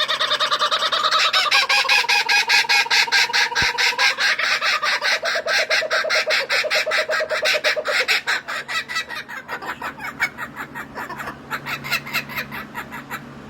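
Laughing kookaburras calling together in their laughing chorus: a long run of rapid, chuckling notes, loud at first and dying away over the last few seconds.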